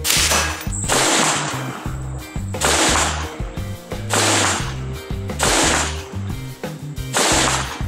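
Music with a stepped bass line over rifle shots, about six sharp cracks fired one to two seconds apart, each trailing off briefly.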